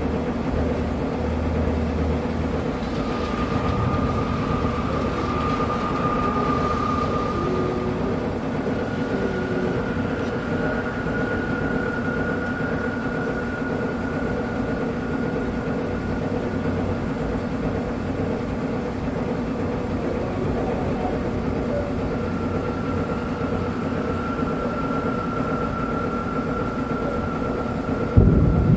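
Steady low rumble of a stormy night over a city, with faint high tones held for several seconds at a time drifting over it. Near the end a sudden, louder low rumble breaks in.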